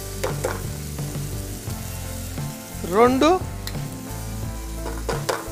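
Onions, green chillies and tomatoes sizzling in oil in a non-stick frying pan as raw eggs are cracked in for egg bhurji. A short voice sounds about three seconds in, and a few sharp taps come near the end.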